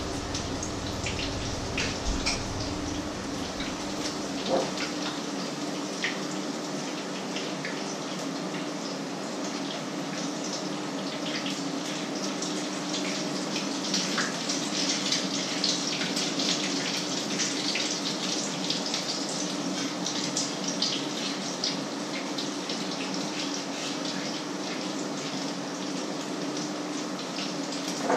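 Food frying in oil in a pan, a steady sizzle full of small crackles that grows a little stronger about halfway through, over a steady low hum.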